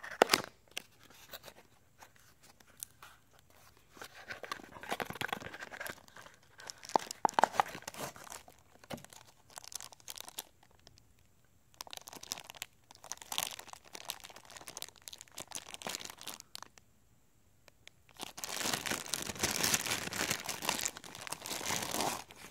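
Packaging being handled: a cardboard box opened with a sharp click at the start, then a clear plastic bag crinkling in irregular bursts as a boxed unit is slid out and unwrapped. The crinkling is densest and loudest in the last few seconds as the bag is pulled off.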